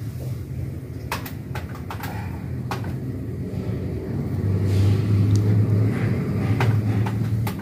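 A low rumble, louder from about four and a half seconds in, with scattered sharp clicks over it.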